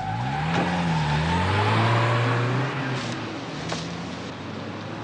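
A BMW 6 Series coupe's engine revs up about half a second in and pulls away, its note holding and then fading as the car drives off. Two short clicks come a little after three seconds in.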